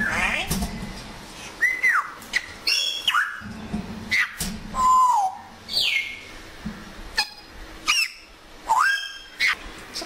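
African grey parrot whistling: a string of separate whistles about once a second, some gliding up, some gliding down, some arching over.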